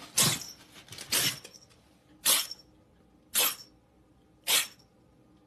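Grey tabby kitten sneezing over and over, five short sharp sneezes about a second apart.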